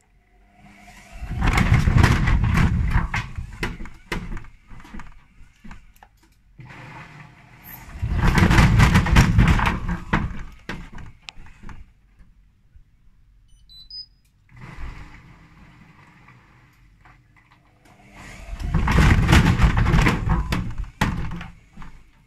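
Hotpoint Ariston front-loading washing machine running an unbalanced load, with its tachometer disconnected and one shock absorber removed. The drum turns in three loud bursts of about three seconds each, full of knocking and rattling, with quieter pauses between.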